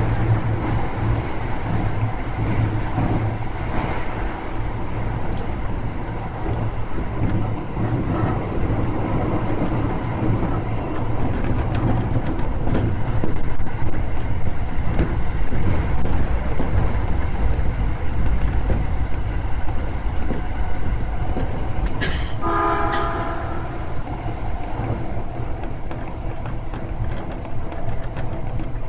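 Toei Shinjuku Line subway train running at speed through a tunnel, heard from the driver's cab: a steady rumble of wheels on rail and running gear. About 22 seconds in, a click is followed by a short pitched tone lasting about a second.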